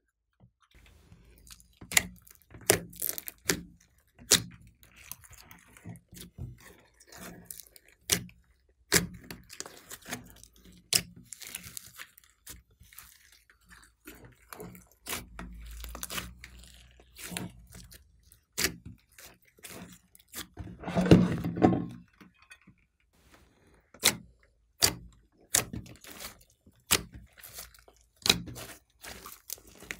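Hands squeezing and kneading a large batch of slime, giving sticky squelches and irregular sharp pops and clicks, with one longer, louder squelch about two-thirds of the way through.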